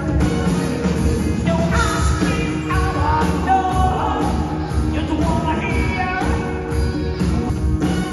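Live rock band playing, with a lead vocal singing a melody over drums and bass.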